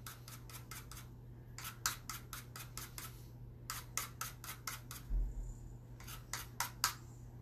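Lime being zested on a handheld zester: short runs of quick rasping strokes, several a second, with brief pauses between them.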